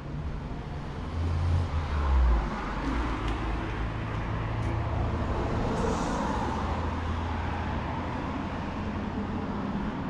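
A motor vehicle's engine running close by over steady outdoor noise, louder for a moment between about one and two and a half seconds in.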